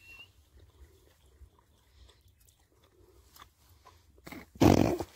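Person chewing a mouthful of steak, with faint soft mouth clicks. About four and a half seconds in comes a short, loud, breathy burst of noise.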